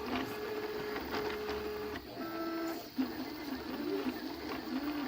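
3D printer's stepper motors whining as the print head moves. Steady tones change pitch in steps over the first two seconds, then give way to short rising and falling glides that repeat about every two-thirds of a second.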